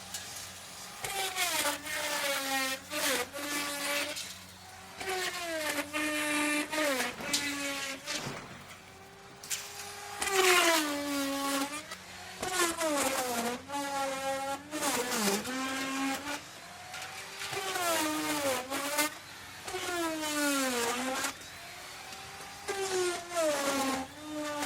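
Electric wood router running, its motor pitch sagging each time the bit bites into the wood, with a rush of cutting noise, then climbing back as it comes free. This repeats over a dozen times in a row.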